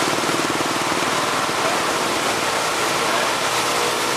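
Army truck's engine running with a steady rush of noise as the truck drives along a flooded road.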